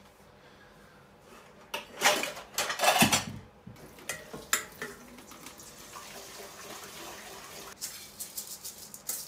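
Stainless steel bowl and other kitchenware clattering loudly in a rattling crash about two seconds in, lasting a second and a half. Quieter handling follows, with a steady rushing sound and light clicks as the bowl is tipped over a clay donabe pot near the end.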